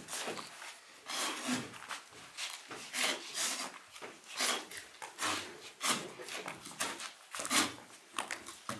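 A person's rhythmic, rasping breaths, heavy like panting, about two strokes a second.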